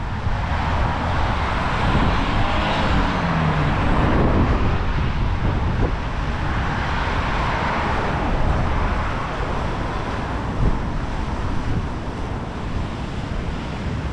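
Wind buffeting the microphone over passing road traffic. A vehicle goes by a few seconds in, its engine note falling as it passes, and tyre hiss swells again around seven seconds in.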